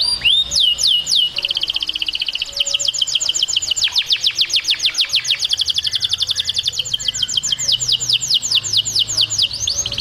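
Canary singing: a few slow, falling whistled notes, then a long rapid trill of evenly repeated falling notes, about seven a second, which changes pattern near the end.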